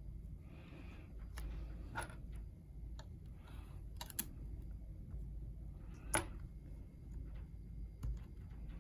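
Scattered light clicks and taps of small laptop parts and tools being handled, the sharpest about six seconds in, over a low steady hum.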